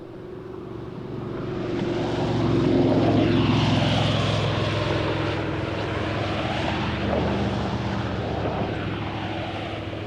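Propeller airplane engine fading in from quiet and passing close, loudest about three seconds in, then a steady drone whose tone sweeps up and down as it goes by.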